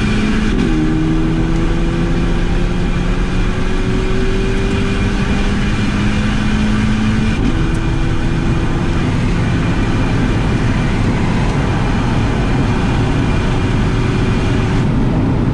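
VW Polo GTI engine heard from inside the cabin at full throttle, pulling up through the gears: the engine note climbs steadily, drops at an upshift about half a second in and again about seven and a half seconds in, then climbs again, over steady road and wind noise.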